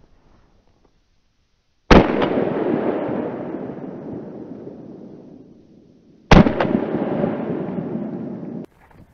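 Two shots from an MP-155 semi-automatic shotgun about four and a half seconds apart. Each is followed by a long echo fading through the forest. The second echo cuts off suddenly near the end.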